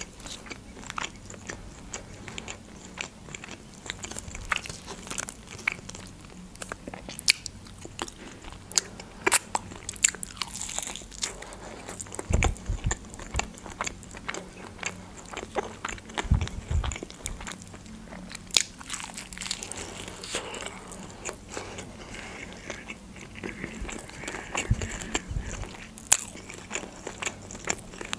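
Close-miked eating of a KFC fried chicken drumstick: crisp crunches and sharp clicks of the breaded coating being bitten, with wet chewing between, irregular throughout.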